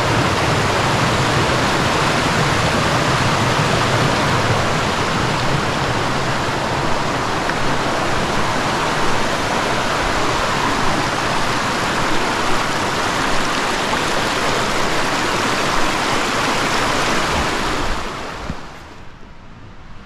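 Steady, loud rush of falling water from Fukuroda Falls, dropping away sharply near the end.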